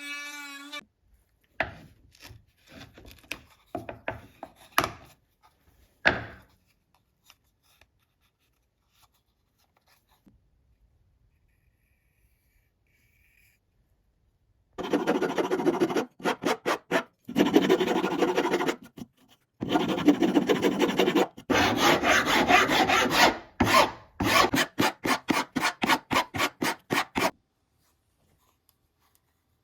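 Hand file or rasp worked in quick back-and-forth strokes, about four strokes a second near the end, after a few scattered knocks and a long quiet gap.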